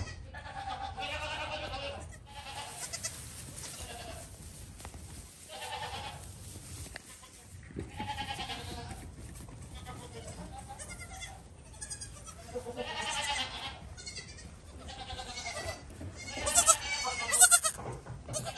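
Young goat kids bleating over and over, high quavering calls from several animals, the loudest coming in a quick cluster near the end.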